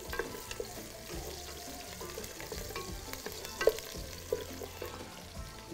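Onions sizzling in a metal pot as a wooden spoon stirs them, with a few light scrapes and knocks of the spoon against the pot, the clearest a little before four seconds in.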